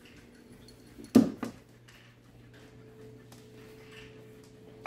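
A loud knock about a second in, then the small motor of a motorised flopping-fish cat toy humming steadily from about halfway on, with faint taps as the fish flaps on the floor.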